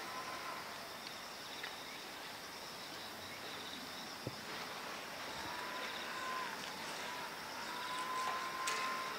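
Outdoor background ambience: a steady hiss with faint, rapidly pulsing insect chirping. A thin steady high tone comes and goes, and there is one soft click about four seconds in.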